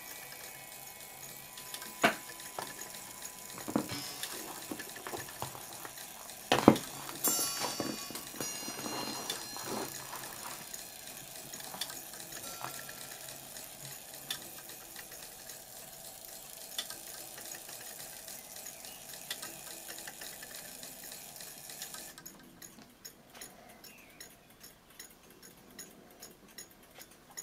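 Triple fusee bracket clock movement running, its escapement ticking steadily. Several sharp metallic knocks come in the first few seconds, and bright bell-like ringing follows for a few seconds about a quarter of the way through.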